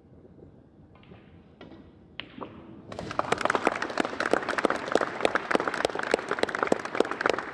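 Audience applauding: a few scattered claps at first, then full applause from many hands starting about three seconds in.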